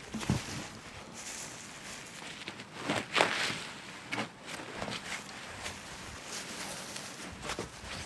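Boots crunching and scuffing on frozen snow and the concrete hatch rim, with clothing rustling, as a person climbs down into a bunker's emergency-exit shaft; one louder scuff about three seconds in.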